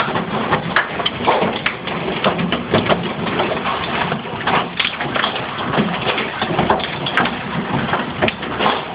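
Large hailstones pelting the house and the cars outside: a dense, irregular clatter of hard impacts over a steady hiss of falling hail. The hail is heavy enough to smash car windscreens.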